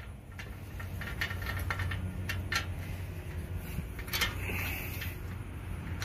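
Light metallic clicks and scrapes, scattered irregularly, as a small hex bolt and steel strap are worked by hand into the steel bracket of a storage rack. A steady low rumble runs underneath.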